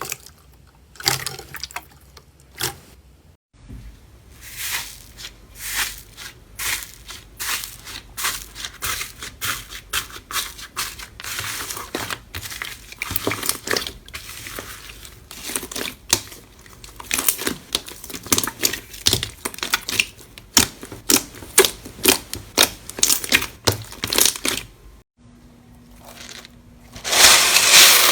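Slime being squeezed and pressed by hand, giving quick wet crackles and pops, many to the second. A louder, denser crunching sets in near the end.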